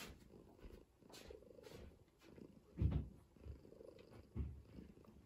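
Calico cat purring, a low rumble that swells and fades in waves about a second long. Two soft low thumps stand out, about three seconds in and again near the end.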